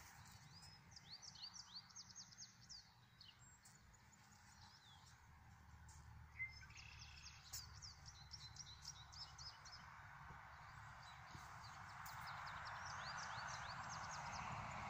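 Near silence outdoors with faint birdsong: quick runs of short, high chirps, over a soft background hiss that grows a little louder near the end.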